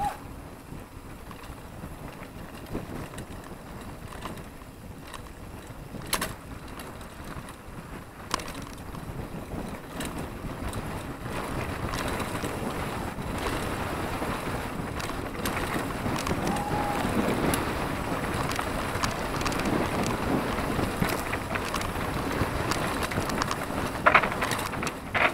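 Mountain bike riding fast down a rough dirt trail: wind buffeting the microphone, with the tyres and bike rattling over the ground. It grows louder about halfway through, and there are a few sharp knocks.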